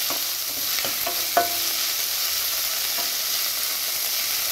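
Chopped vegetables sizzling in a little oil in a steel kadhai while a wooden spatula stirs them, a steady frying hiss. A couple of sharp knocks of the spatula against the pan ring out about a second in.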